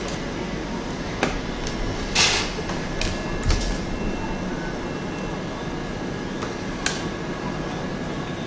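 A few sharp plastic clicks and one short scrape as an LED light strip is handled and pressed into place on a light-box panel, over a steady background hiss.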